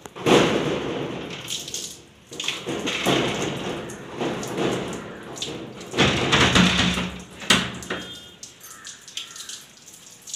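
Water poured from a plastic mug over long hair, splashing onto a concrete floor, in several separate pours: one right away, another about two seconds in and the strongest about six seconds in, quieter near the end.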